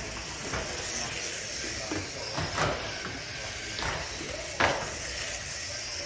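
Electric radio-controlled ministock cars racing on a carpet oval: a steady high motor whine with several sharp knocks, the loudest about four and a half seconds in.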